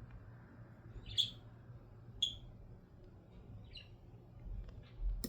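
A few short, sharp metallic clicks of a lock pick working the pin stack of a Dom Diamant lock, about a second apart, followed by soft bumps of the lock being handled near the end.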